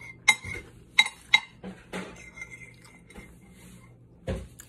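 Metal fork clinking and scraping on a plate while rice is scooped up: several sharp clinks in the first two seconds, then quieter scraping, and a dull thump near the end.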